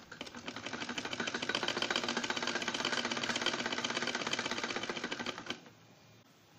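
Vintage black-and-gold sewing machine stitching through cloth: a rapid, even mechanical clatter that builds up over about a second, runs steadily, then stops abruptly about five and a half seconds in.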